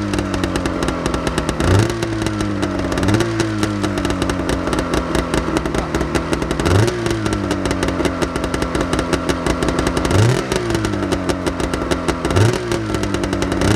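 Arctic Cat 440 Sno Pro snowmobile's two-stroke engine running after a cold start, smoking as it warms up. The throttle is blipped five times, and each time the pitch jumps up sharply and then sinks back slowly toward idle.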